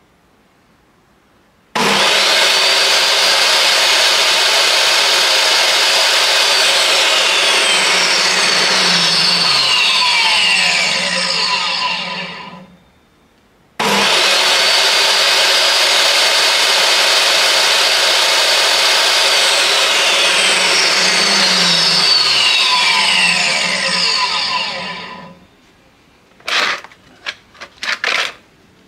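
DeWalt DW745 table saw's motor switched on twice, each time starting abruptly and running at full speed before winding down with a falling whine as the blade coasts to a stop. This is the test of a newly fitted replacement switch, which now starts the saw and keeps it running. A few short knocks near the end.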